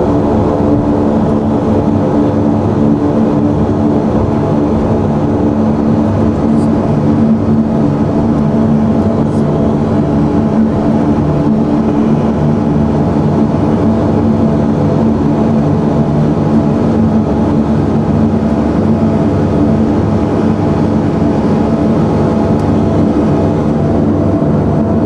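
Steady drone of a Blue Islands Jetstream airliner's engines heard from inside the cabin while it taxis after landing: a constant hum of several steady tones over a rushing background, with no change in pitch.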